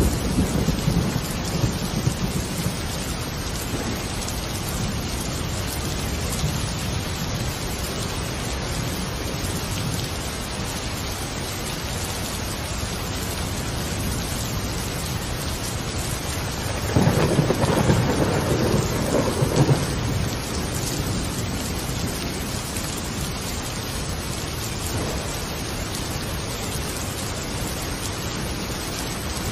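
Steady rain with a rumble of thunder about two-thirds of the way through, lasting a few seconds.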